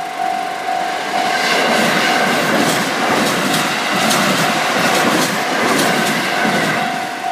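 Japanese level crossing warning bell dinging steadily, about two strikes a second. From about a second in until near the end, a train passes over the crossing, its wheels clacking over the rail joints.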